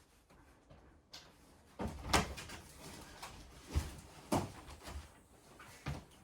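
A series of sharp knocks and thumps in a small room, about six in all, the loudest about two seconds in.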